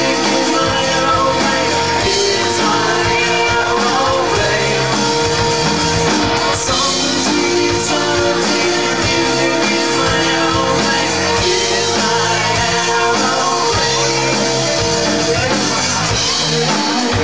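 Live rock band playing loud and steady, with electric guitars, drums and a singer's lead vocal through the PA.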